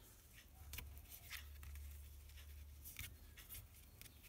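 Faint rustles and light ticks of paper card stock and linen thread being handled as the thread is wrapped around a card panel, over a low steady hum.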